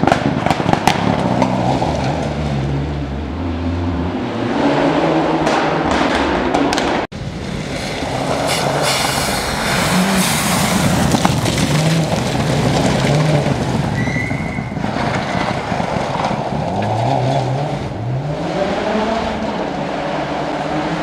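Rally cars on a gravel stage. First a Mitsubishi Lancer rally car accelerates away, engine running hard with gravel crackling and pelting. After an abrupt cut a Subaru Impreza rally car approaches and passes at full throttle, its engine pitch rising through the gears over the hiss of tyres on loose gravel.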